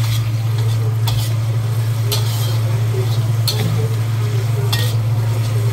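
A metal spatula stirs and tosses bean sprouts in a wok, with several sharp clinks of the spatula against the pan. A steady low hum runs underneath.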